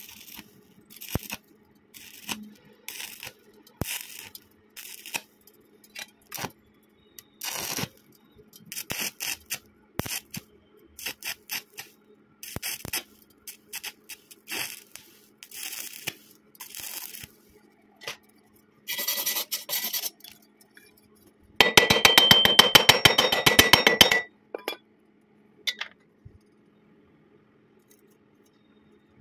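Stick-welding arc crackling in short bursts of under a second, struck and broken over and over as a stitch technique for thin-walled square tubing, over a steady low hum. About 22 seconds in comes a loud, rapid run of metallic tapping with a ringing tone for two to three seconds.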